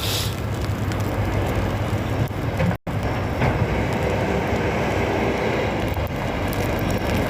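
Steady low rumble of heavy snow-removal vehicles' engines running. The sound cuts out for an instant a little before three seconds in.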